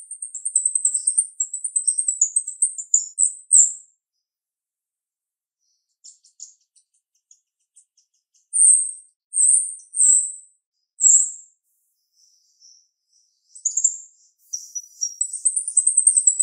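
Female jalak rio-rio, a caged starling, singing sharp, high-pitched notes. A fast run of chirps is followed by a pause with a few faint clicks, then four separate clear calls, and near the end another fast chattering run.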